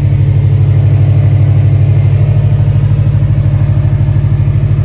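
2019 Subaru WRX STI's turbocharged flat-four boxer engine idling steadily and loud, with an even low pulsing, through its aftermarket Invidia exhaust.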